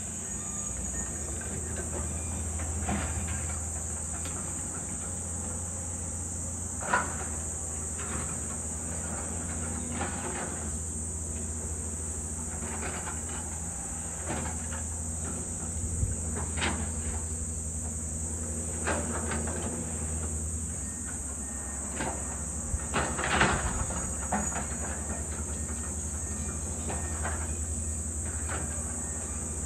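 Distant diesel earthmoving machinery (excavators and a road roller) running with a steady low hum, with scattered knocks and clanks, the loudest about a quarter of the way in and again about three quarters in. A continuous high-pitched insect drone sits over it.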